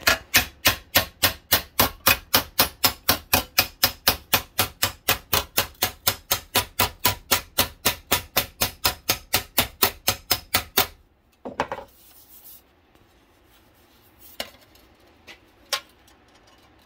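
Body-work hammer rapidly planishing a MIG weld in thin sheet steel, an even run of sharp metallic blows about four a second that stops about eleven seconds in. A few faint knocks follow.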